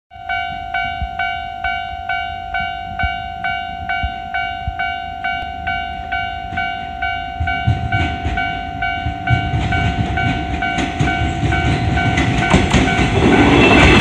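Japanese level-crossing warning bell sounding its repeated 'kan-kan' about one and a half times a second. From about halfway a JR 103 series electric train approaches with a rising rumble, drowning the bell near the end as it passes close with its wheels clattering.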